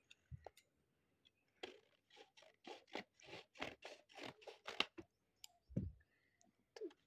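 Scissors snipping through the paper edge of a homemade paper blind bag: a run of quick short cuts, about four a second, for a few seconds. A soft low thump follows near the end.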